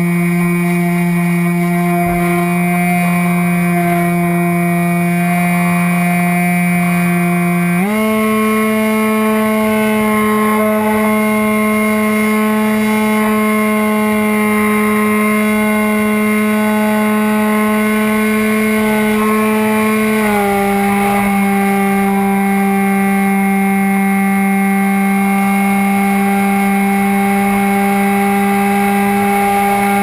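Motor and propeller of a SkyFly Max radio-controlled model plane, heard from its onboard camera, running with a steady, loud hum as the plane takes off and climbs. The pitch steps up at a throttle increase about a quarter of the way in, then drops back a little about two-thirds of the way through.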